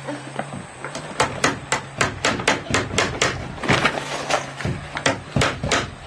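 Claw hammer driving a nail into a wooden wall plank with quick, even blows, about three to four a second, starting about a second in.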